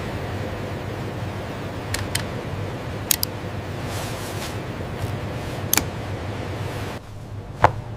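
Workshop machinery running with a steady low hum, with a few short sharp clicks or snips about two, three, six and seven and a half seconds in.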